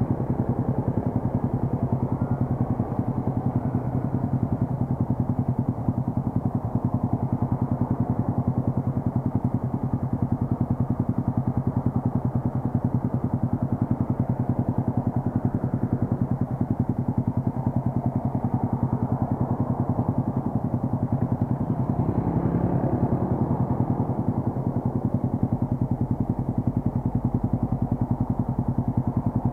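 Modenas underbone motorcycle with a Black Cobra aftermarket exhaust idling steadily at a standstill.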